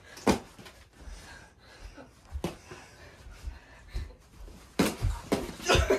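Padded boxing gloves thudding as two kids spar, with short sharp hits spread out and several in quick succession near the end. Breathing is heard between the hits.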